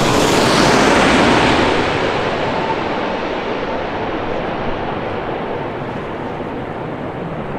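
Jet airliner passing low overhead, a loud roar that is strongest at first and slowly fades, with a faint steady whine in it for the first few seconds.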